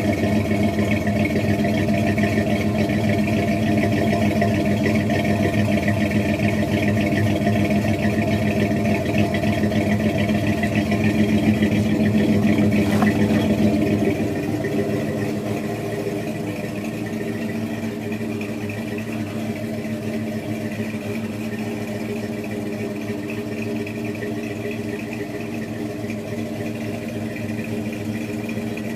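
1978 Chevrolet K5 Blazer engine idling steadily through a 2.5-inch exhaust with Sanderson cast iron headers. The exhaust note becomes somewhat quieter about halfway through.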